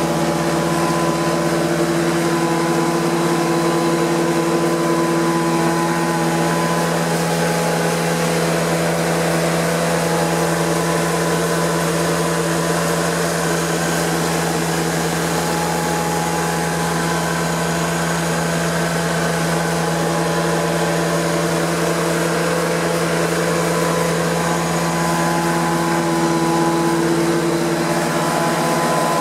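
Prochem Performer 405 truck-mount carpet cleaning unit running steadily: its Nissan A15 engine drives the Sutorbilt blower, pulling about 15 inches of vacuum, and the Cat pump, holding about 500 psi.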